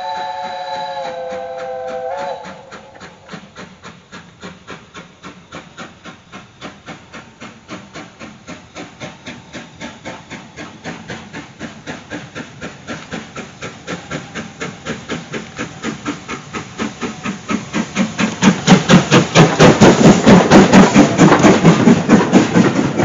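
Steam locomotive, BR Standard Class 5 No. 73082 Camelot, sounding its whistle for about two seconds. It then approaches working steam, its exhaust beating in a steady rhythm that grows louder until it passes close by near the end.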